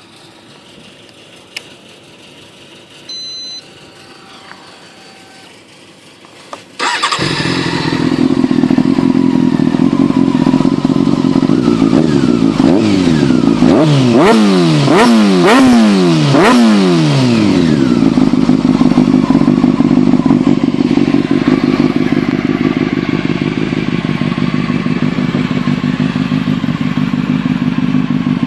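Honda CBR600F Sport inline-four motorcycle engine with a Scorpion aftermarket exhaust starting up about seven seconds in, after a few faint clicks and a short beep. It settles into idle, is blipped about six times in quick succession with the revs rising and falling, then idles steadily.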